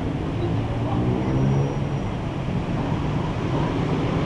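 Diesel locomotive of an approaching passenger train running with a low engine drone, its pitch rising about a second in.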